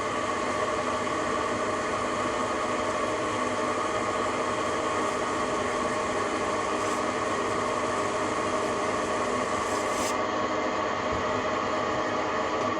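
TV-16 benchtop lathe running steadily at high spindle speed while a metal part is finished to clean metal, a constant machine hum with several steady tones under a rubbing, rasping noise.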